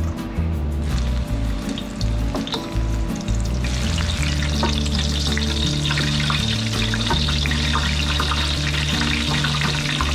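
Eggplant, snap peas, carrot and eringi mushroom in a stainless mesh strainer sizzling and crackling in a pot of hot oil; the frying turns loud and dense about three and a half seconds in. This is the quick oil-blanching of the vegetables before they go into the sauce.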